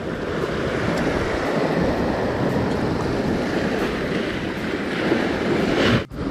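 Sea waves surging and washing against shoreline rocks, a steady wash of noise that cuts out for an instant near the end.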